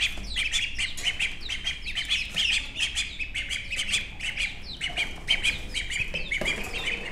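Ducklings and chicks peeping continuously: many short, high calls a second, each falling in pitch.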